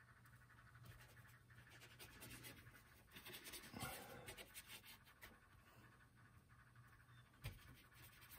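Faint scratchy strokes of a paintbrush scrubbing oil paint onto a linen panel, thickest a few seconds in, with one soft knock near the end.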